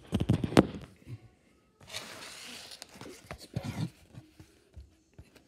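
Cardboard comic mailer being handled and cut open: a few knocks in the first second, then a rasping scrape of cardboard about two seconds in that lasts about a second, followed by light knocks.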